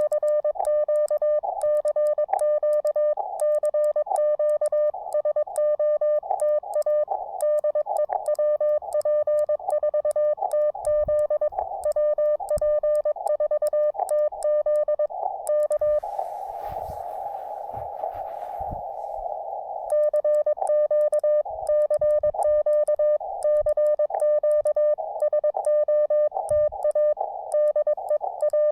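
Morse code (CW) from an amateur radio transceiver: one steady, mid-pitched sidetone keyed rapidly on and off in dots and dashes, with faint clicking as the key is worked. About sixteen seconds in the keying stops for a few seconds and only receiver hiss is heard, then the sending resumes.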